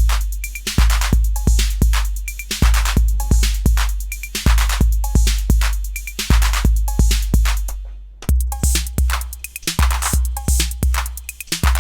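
Acidlab Miami, an analog TR-808 clone drum machine, playing a looped pattern of booming 808 bass drum, ticking hi-hats and the two-tone 808 cowbell. About eight seconds in, the loop stops briefly and starts again with a slightly higher-pitched kick.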